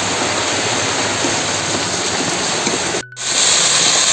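A steady rushing hiss, then a brief break about three seconds in, after which okra sizzles in hot oil in an aluminium pan.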